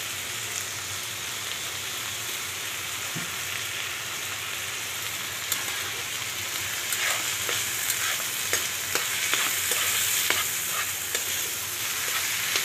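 Chicken, onions and green chillies sizzling in oil in a frying pan, with a steady hiss. From about halfway through, a spoon stirring the mix scrapes and clicks against the pan again and again.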